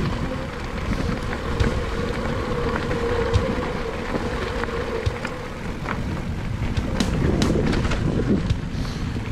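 Specialized Turbo Levo Comp e-mountain bike rolling along a gravel dirt trail: steady tyre and wind noise with scattered clicks and rattles from stones and the bike. A steady whine runs through the first half.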